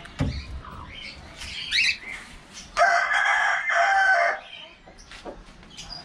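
A rooster crows once: a single long crow of about a second and a half, starting a little under three seconds in. Before it there is a click near the start and a few short bird chirps.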